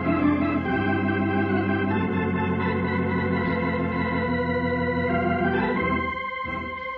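Organ music bridge: held chords that change every second or so, then fade out near the end.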